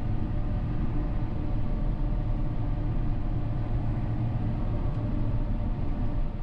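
John Deere 6R 215 tractor's six-cylinder diesel engine running steadily, heard from the driver's seat, with most of its sound low in pitch.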